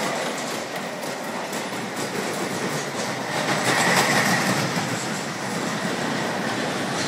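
Steel roller coaster cars running along the track with a continuous rattle and clatter of wheels, and a brief wheel squeal about four seconds in, the loudest moment.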